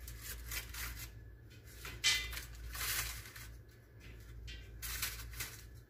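Kitchen handling noises: a run of rustles and light knocks of things being picked up and set down, with a sharper knock about two seconds in as the loudest sound, over a steady low hum.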